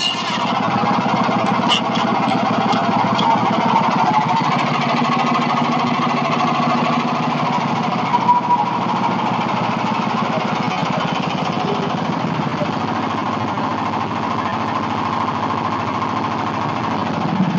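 Hudson Patriot portable band sawmill's engine running steadily.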